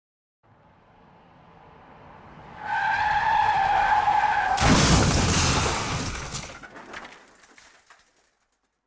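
Car crash sound effect: a vehicle approaches, its tyres squeal in a skid for about two seconds, then a sudden loud crash of impact, followed by clattering debris that dies away.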